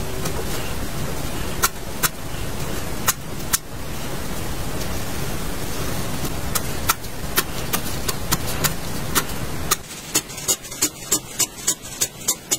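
Graphite pencil scratching across textured drawing paper, with sharp ticks as strokes touch down and lift. Near the end comes a quick run of short strokes, about three a second.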